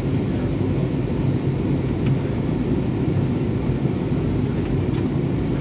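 Steady low rumble of an Airbus A320's engines and airflow, heard inside the passenger cabin during the descent to land, with a couple of faint ticks.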